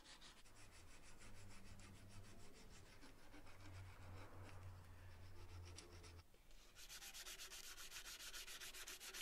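Faint sandpaper rubbing by hand on a cast-aluminium vise body in quick back-and-forth strokes, sanding back a hardened metal-putty repair. It breaks off briefly about six seconds in and resumes brighter as the bare aluminium of the other half is sanded.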